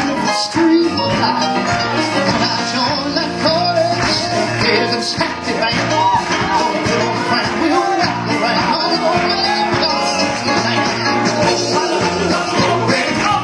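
Live gospel band playing an upbeat number with a steady drum beat.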